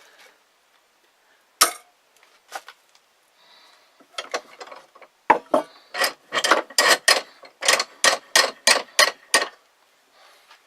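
A small hand saw cutting through the wooden perch stick of the trap, about fifteen quick back-and-forth strokes, roughly three a second, after a couple of knocks as the stick is set in place.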